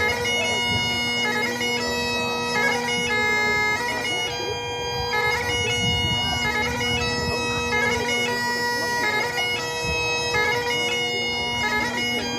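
Great Highland bagpipe played solo: steady drones under a slow piobaireachd melody on the chanter. The chanter holds long notes of a second or two, each broken by quick grace-note flourishes.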